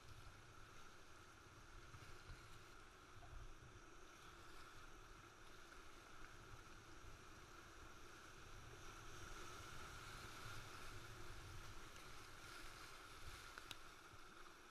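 Whitewater rapid rushing and splashing, heard from a kayak in the waves: a steady hiss with irregular low knocks and rumbles.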